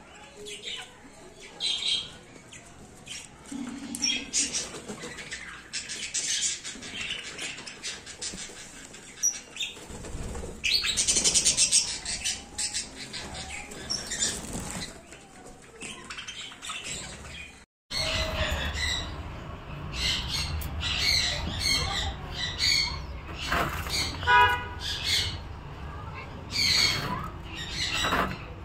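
Pet budgerigars chirping and flapping their wings.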